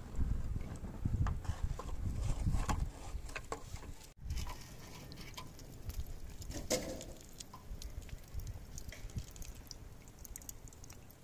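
Engine oil burning and crackling on a hot, clay-coated katana blade just lifted from the oil quench. For the first three seconds it makes a low rushing noise full of crackles. After an abrupt drop about four seconds in, only fainter scattered crackling and sizzling remain.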